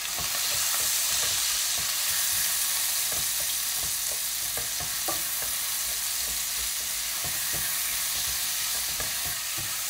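Sliced onions sizzling steadily in hot oil in a metal pot as they fry to soften, stirred with a spatula that scrapes and knocks against the pan at irregular moments.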